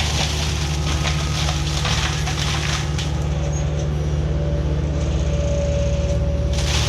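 Kubota U55-4 mini excavator running hard, driving a Prinoth hydraulic mulcher head, steady diesel drone underneath. The head's grinding of wood eases about halfway, leaving a rising whine from the spinning drum. The grinding starts again abruptly near the end as the head bites back into the brush.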